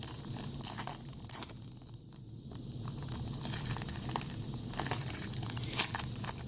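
Plastic trading-card pack wrapper crinkling and tearing as it is worked open by hand, with a quieter pause about two seconds in. The pack is stubborn and won't give easily.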